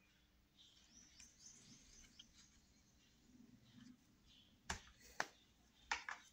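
Mostly near silence, with a faint high chirp a second or two in, then a few sharp little clicks and taps near the end as small plastic paint pots are handled.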